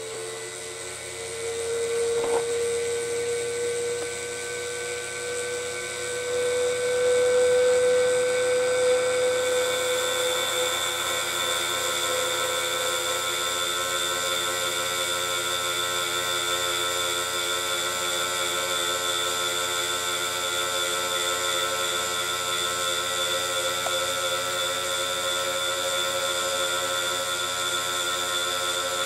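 High-speed cutter in a rose engine's drilling frame spinning and cutting a thread into a white plastic tube: a steady whine that comes up over the first couple of seconds and edges slightly higher in pitch over the first ten, with a single click a couple of seconds in.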